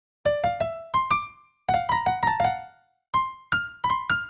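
Background music: short phrases of quickly fading keyboard notes, three little runs of four to six notes each with brief pauses between them.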